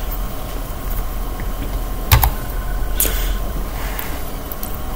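Two keystrokes on a computer keyboard about a second apart, over a steady background hiss and hum.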